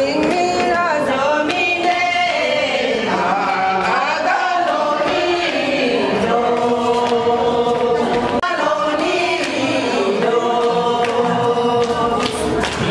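Group of voices singing a Sherpa traditional dance song together, with long held, wavering notes.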